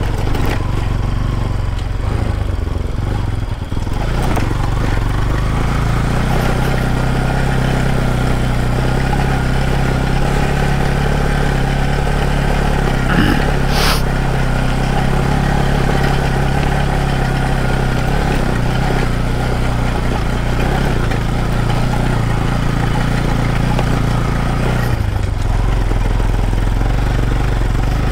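Motorcycle engine running at a steady pitch, changing about four seconds in and again near the end, with one brief sharp knock about halfway through.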